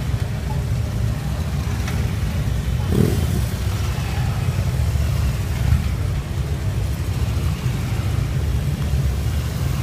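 Police motorcycles riding past slowly in a line, their engines running steadily at low speed.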